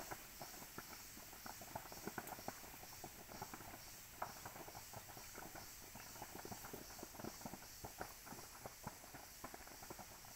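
Faint, irregular crackling and popping from a distant slash-and-burn (jhum) fire burning through bamboo forest.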